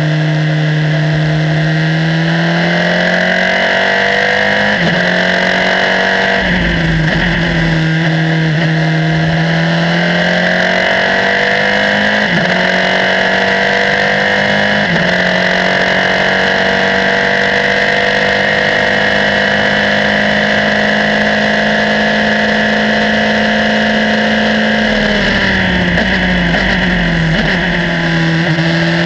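Formula 3 single-seater racing car's engine heard onboard under full throttle, climbing in pitch and dropping back with each upshift, four times in the first fifteen seconds. It then holds at high revs along the straight. Near the end the revs fall in steps as the car brakes and downshifts for the corner.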